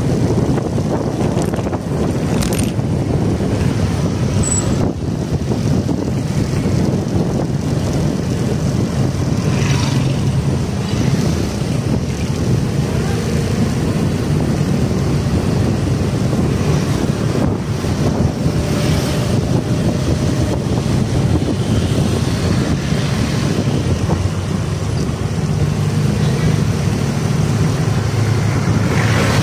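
Motorcycle engine running steadily while riding in traffic, with road noise.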